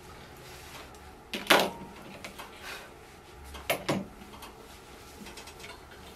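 Sharp knocks and clatters of handling on a grooming table: one loud clatter about a second and a half in, then a quick double knock near four seconds.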